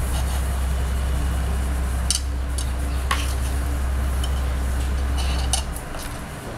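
Hot air rework station blowing, a steady low rumble that cuts off about five and a half seconds in, during BGA reballing of a phone display IC. A few light metallic clicks, one about two seconds in and one about three seconds in, with another just before the rumble stops.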